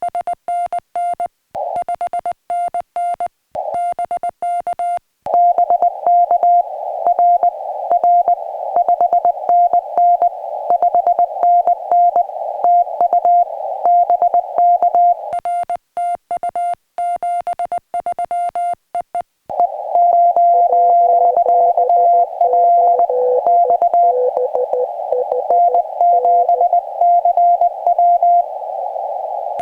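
Morse code (CW) tones from a portable ham radio: a mid-pitched tone keyed on and off in dots and dashes. It is clean for the first few seconds, then sounds over a narrow band of receiver hiss from about five seconds in, with a second, lower tone joining at about twenty seconds.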